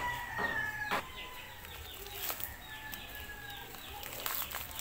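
A rooster crowing in long, drawn-out calls that slowly fall in pitch, one fading about a second and a half in and another about a second later. Under them comes the crinkling and rustling of plastic wrapping being handled.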